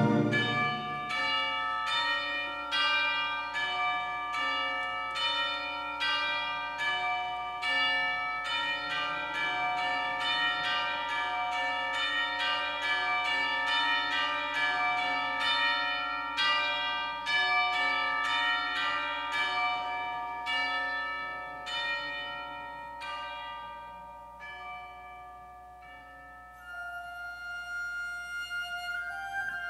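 Tubular bells (orchestral chimes) played solo: a slow series of struck notes, about two a second, each ringing on, thinning out and fading away after about 24 seconds. The orchestra's chord cuts off in the first second, and near the end a flute comes in with held notes.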